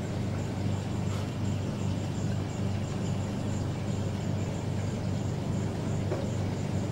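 Aquarium pump running with a steady low hum under a constant rushing wash of noise.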